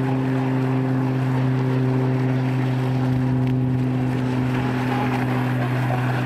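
Radio-controlled F1 catamaran model boat's motor running flat out as the boat planes across the water, one steady drone that holds the same pitch throughout.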